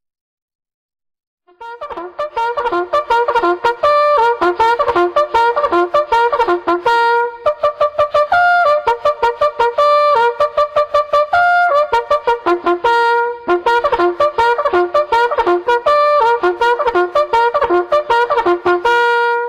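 Background music on brass instruments, a lively piece of quick, short notes, coming in about a second and a half in and stopping abruptly at the end.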